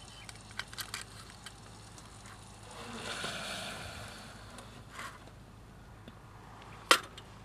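Small metallic clicks and light rattles from a folding stainless steel Firebox Nano camp stove being handled as its rods are pushed through, with a soft scraping rush about three seconds in and one sharp click near the end.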